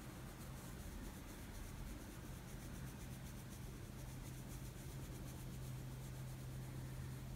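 Faint, soft rubbing of a small eyeshadow blending brush's bristles worked back and forth over the skin of a forearm, blending out a powder swatch. A steady low hum runs underneath.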